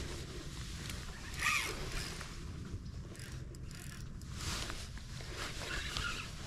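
Spinning reel being cranked to bring in a hooked carp, in uneven stretches of scratchy mechanical noise.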